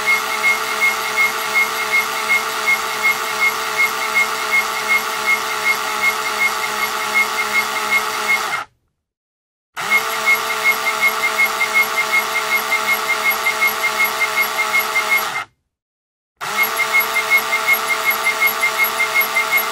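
A screw turning with a whistling squeak: a high, pulsing squeal over a steady mechanical drag, beating about three times a second. It cuts off sharply twice, for about a second each time, about nine seconds in and again near the end.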